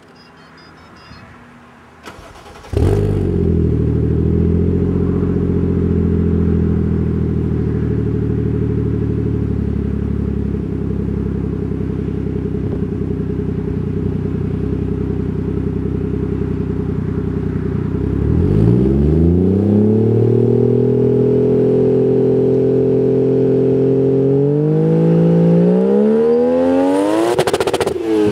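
Turbocharged 1JZ-GTE inline-six, heard at the tailpipe through a Fujitsubo Legalis Super R exhaust. It is started from cold about three seconds in and idles steadily. From about 18 seconds it is held at raised revs, steps up again a little later, and near the end it is blipped sharply upward.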